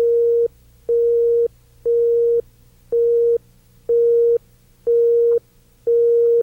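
Countdown-leader beeps on a TV station's tape: a steady mid-pitched tone about half a second long, once every second, seven times, timed to the on-screen countdown. A faint low hum sits between the beeps.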